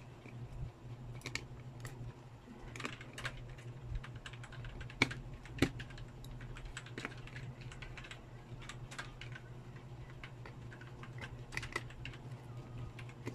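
Small irregular clicks and taps of a hand tool and fingers against the opened plastic-and-metal frame of a Vivo Y91 smartphone as it is worked on, with two sharper clicks about five seconds in. A steady low hum runs underneath.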